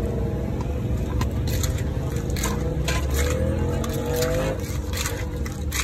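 Spoon and pestle knocking and scraping in a glazed mortar as papaya salad is mixed, with a few sharp clinks. Under it runs a steady low traffic rumble, and a passing engine rises in pitch between about three and four and a half seconds in.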